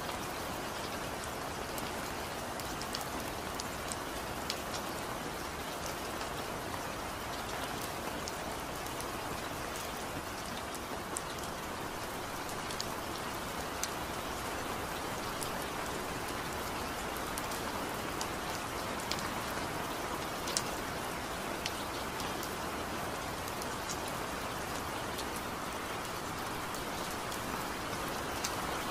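Steady rain falling: a continuous hiss with many small drop taps scattered through it.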